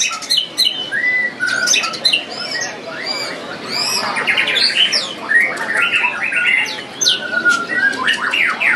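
Caged white-rumped shamas (murai batu) singing over one another: a dense, continuous run of varied whistles, slurred notes and rapid rattling trills.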